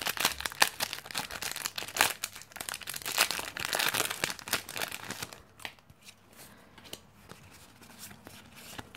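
Foil wrapper of a Pokémon trading-card booster pack being torn open and crinkled in the hands, a dense crackling that stops about five seconds in.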